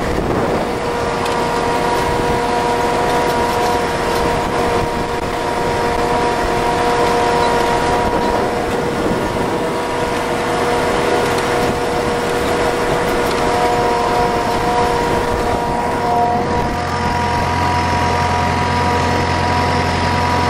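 Ebro 470 tractor's diesel engine running steadily under load while pulling a Monosem pneumatic precision planter sowing corn, with a steady high whine over the engine noise.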